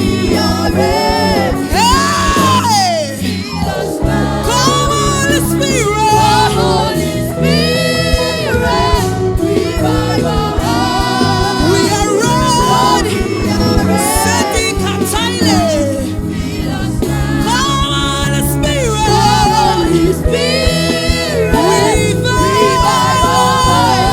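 Live gospel worship music: a singer leads with sweeping runs over a choir and a full band, keeping a steady beat.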